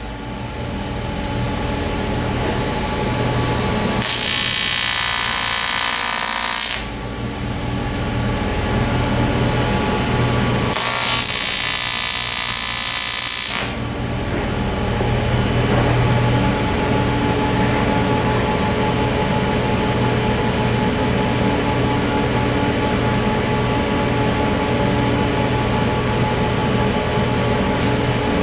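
AC TIG welding arc on aluminum, buzzing steadily, with two spells of strong high-pitched hiss a few seconds long.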